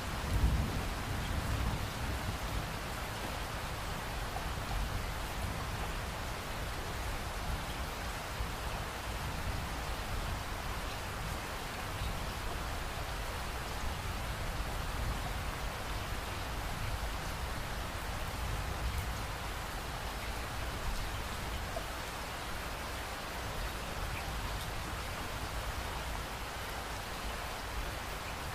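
Steady rain-like hiss and patter that holds even throughout, with one brief louder bump about half a second in.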